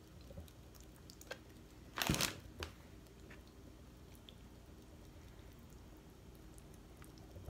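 Pasta sauce glopping from a jar and being worked into spaghetti in an aluminium foil pan with a fork: quiet squishing with a few soft clicks, and one louder crunchy squish about two seconds in.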